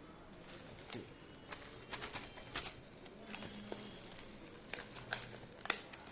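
Plastic packaging bag crinkling as a hand rummages inside it, in irregular crackles, the sharpest near the end.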